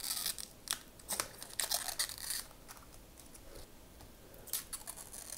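Thin plastic protective film being peeled off the front of an AIO cooler's pump head: a series of short crackling rustles through the first couple of seconds, and a few more about four and a half seconds in.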